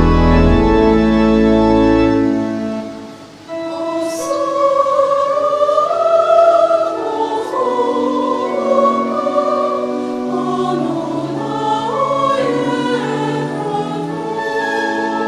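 Church music: a held organ chord dies away in the first two or three seconds, then a choir sings over sustained keyboard chords.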